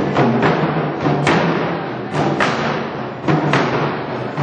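Korean traditional drumming ensemble playing live: heavy drum strikes, often in pairs about once a second, over a dense, continuous ringing wash of sound.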